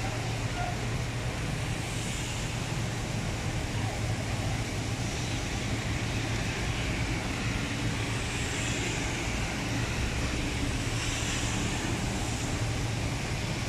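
Heavy rain falling steadily, a continuous hiss, with a few swells of passing traffic on the wet road.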